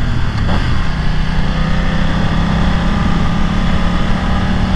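BMW F 900 XR's parallel-twin engine running under load while riding, its note stepping up about half a second in and then holding steady, over wind rush on the microphone.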